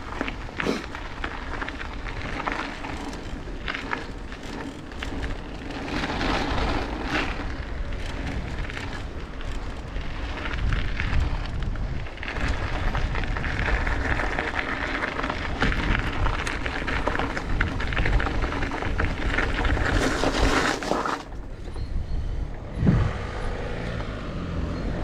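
Mountain bike riding down a dirt trail: wind rushing over the microphone, tyres on dirt and gravel, and frequent knocks and rattles from the bike over bumps. The rushing noise falls away about three quarters of the way through as the bike slows.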